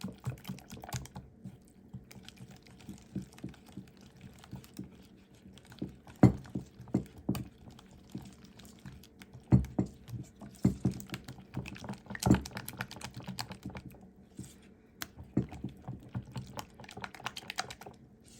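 A utensil stirring a thick cream of chicken soup, milk and ranch mixture in a bowl, with irregular clicks and knocks against the bowl.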